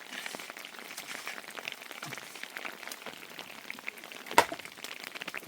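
Steady rain falling, with many small drop ticks and one sharp knock about four and a half seconds in.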